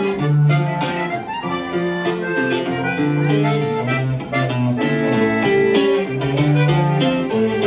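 Live conjunto band playing: a button accordion carries the melody over an electric bass line and a strummed bajo sexto, with no drums.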